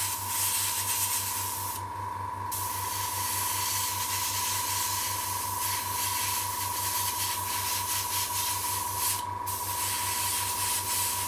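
Airbrush spraying paint in a steady hiss, stopping briefly twice, about two seconds in and about nine seconds in, as the trigger is let off. Underneath, a small motor's steady whine and a low pulsing hum start at the outset, typical of the compressor feeding the airbrush.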